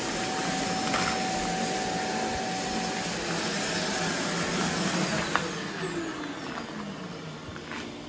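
Robot vacuum cleaners running: a steady whir with a thin whine. A sharp click comes a little past halfway, then the sound grows quieter while a whine falls steadily in pitch.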